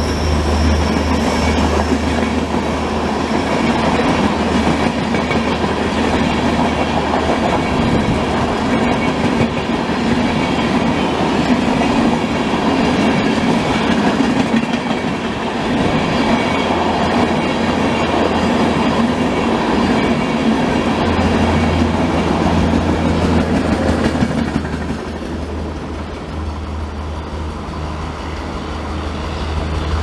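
A Humsafar Express rake of passenger coaches running past at speed: a steady rumble of wheels on rail with rhythmic clatter over the rail joints. The noise drops off about 24 seconds in as the end of the train passes and draws away.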